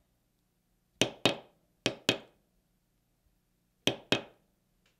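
A mallet striking a metal leather stamping tool held on a leather belt, tooling the leather. Three pairs of sharp taps, the two taps in each pair about a quarter second apart.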